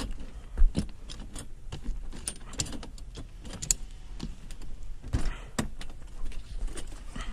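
Scattered clatter, knocks and rattles of a makeshift barricade being handled and set in place, the sharpest knock about half a second in and another cluster around five seconds, over a steady low rumble.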